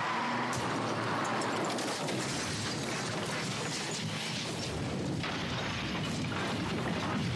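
A car crashing: a dense, continuous crashing noise with many sharp crunching impacts.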